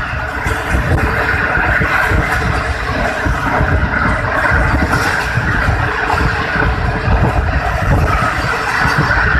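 Steady rumble of a moving passenger train's wheels running on the rails, heard from an open coach window with air rushing past.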